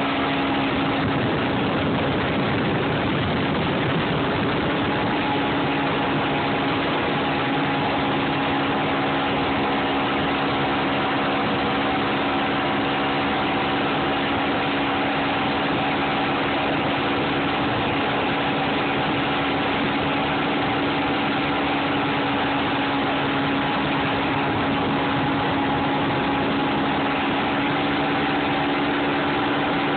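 Mercury 225 outboard motor running steadily at speed under load, towing a tube, its tone holding even throughout, over a constant hiss of wind and churning wake water.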